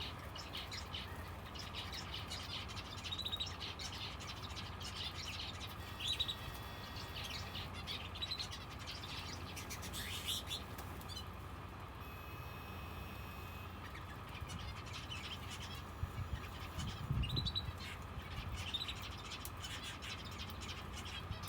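Aviary finches giving short, scattered chirps, with no sustained song, over a steady low hum.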